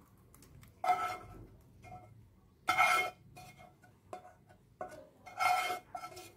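A plastic spatula scraping sticky brown-sugar boba pearls out of a saucepan into a glass bowl: three short scrapes about two seconds apart, each making the pan ring briefly, with softer clinks between.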